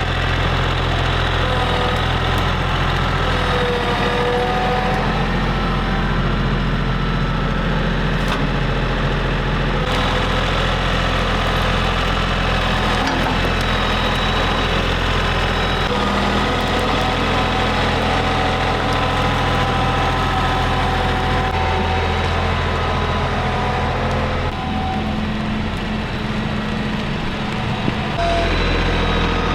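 Tractor engine running steadily at close range, its note shifting several times as the throttle or load changes.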